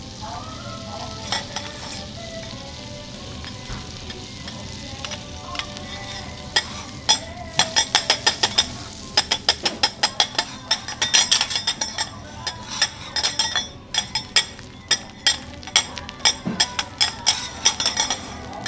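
Butter sizzling on a hot steel teppanyaki griddle. From about seven seconds in, a metal spatula scrapes and taps rapidly against the griddle, making many sharp clicks over the sizzle.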